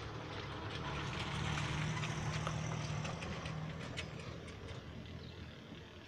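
A low mechanical hum, like a distant motor, that swells about a second and a half in and fades toward the end, with faint scattered clicks over it.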